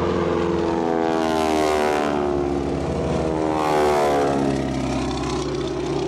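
Radial engine of a Boeing Stearman display biplane droning as it flies past, swelling louder twice, with its pitch sliding down as it passes.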